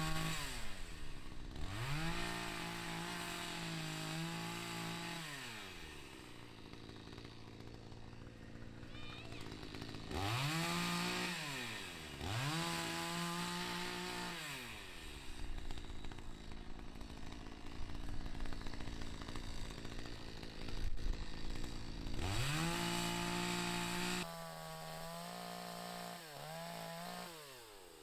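Petrol chainsaw cutting through pruned branches, revving up and holding for each of about five cuts and dropping back to a low idle between them.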